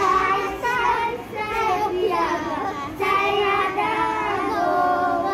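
A group of young children singing a traditional children's song together, in phrases with short breaths between them.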